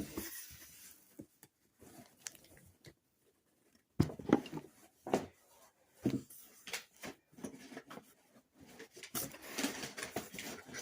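A large cardboard box being handled and opened by hand: scattered knocks and bumps, then a stretch of rustling near the end.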